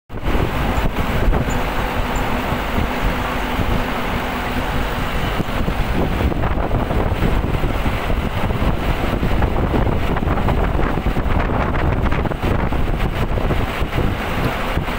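Wind buffeting a microphone held out of the side window of a moving vehicle, over the steady rumble of the vehicle's tyres and engine on the road.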